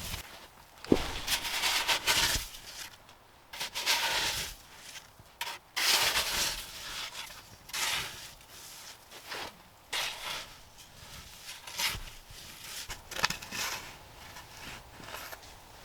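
Snow crunching and scraping in irregular bursts, one every second or two, with a sharp click near the start.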